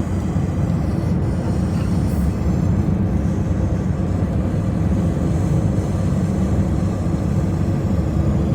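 Steady low rumble of road and engine noise from a car driving along a highway.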